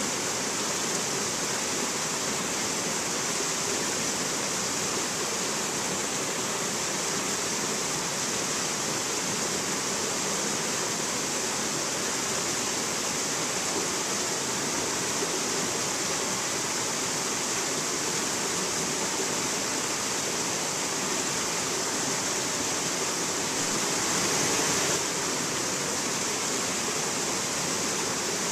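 A rocky stream rushing over boulders and small cascades: a steady, even rush of water, briefly a little louder near the end.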